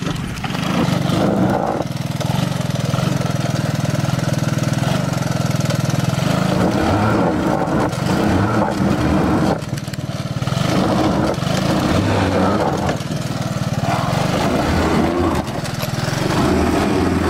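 Air-cooled single-cylinder engine of an old three-wheeler ATV running. It holds steady at first, then its revs rise and fall, with a brief drop about ten seconds in.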